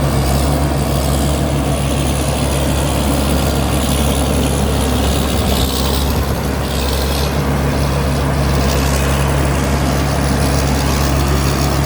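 Rice combine harvester's Cummins diesel engine running steadily, with a constant low hum over the noise of the working machinery and a faint high whine above it.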